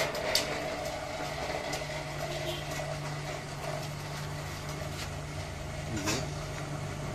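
Small electric motor (about a quarter horsepower) of a homemade coconut grater running with a steady hum, with a short sharp noise about six seconds in.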